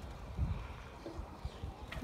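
Low rumbling wind noise on the microphone, with a sharp click near the end.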